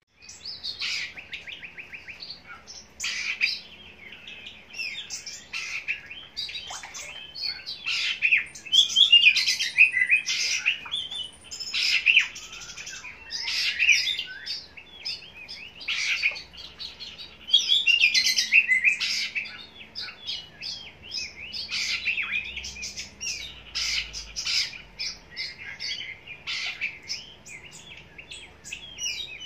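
Oriental magpie-robin (kacer) singing a long, varied run of rapid whistled phrases with only brief pauses.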